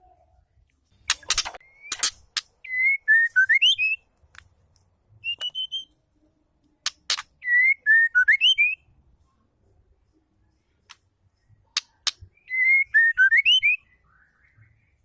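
Female white-rumped shama calling: a short phrase of whistled notes that dip and then rise, repeated three times about five seconds apart, each led by a few sharp clicks.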